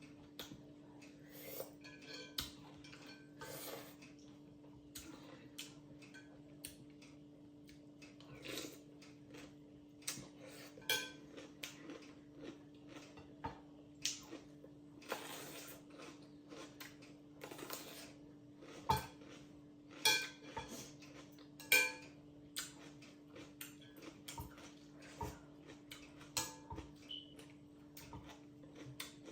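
Metal cutlery clinking and scraping against a dish while noodles are eaten, in scattered irregular clicks, a few of them ringing briefly. A steady low hum runs underneath.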